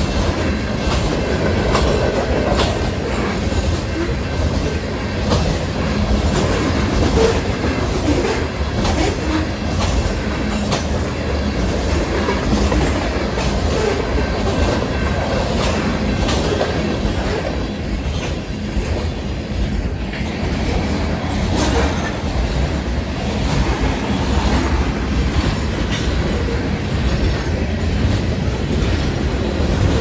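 A train of covered grain hopper cars rolling past: a steady rumble with wheels clacking irregularly over the rail joints and crossing.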